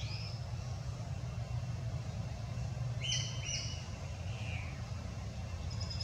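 A bird gives two short, high, whistled chirps about three seconds in, then a fainter falling note. A steady low rumble runs underneath.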